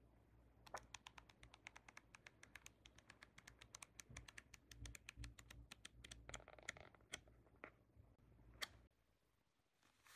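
Paper pages of a flipbook flicking off the thumb one after another, a fast run of faint paper clicks that stops about nine seconds in.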